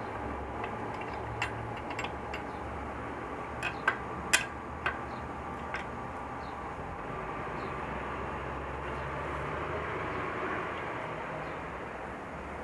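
A few sharp metallic clinks of a box wrench against the trike's front axle nut in the first half, over a steady low hum and rushing background noise.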